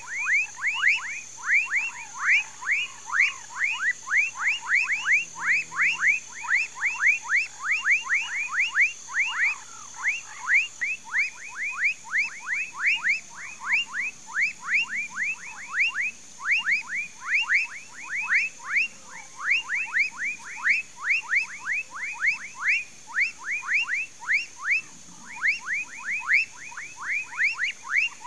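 Frogs calling in chorus: a fast, unbroken run of short sweeping notes, about four a second, over a steady high-pitched buzz.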